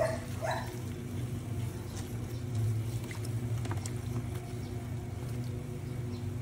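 A steady low motor hum runs throughout, with a brief high, rising squeak about half a second in.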